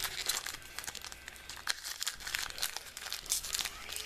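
Foil wrapper of a Bowman baseball card pack crinkling and tearing as it is opened by hand, in quick irregular crackles.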